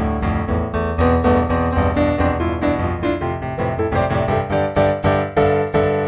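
Solo piano music: notes struck in quick succession over sustained low bass tones.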